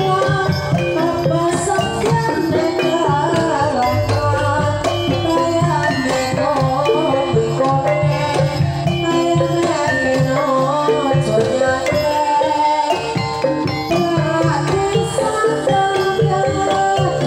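Javanese gamelan ensemble playing a Banyumasan tayub piece: wooden gambang bars struck with mallets, kendang hand drums and gongs, with a melody line that wavers in pitch above them.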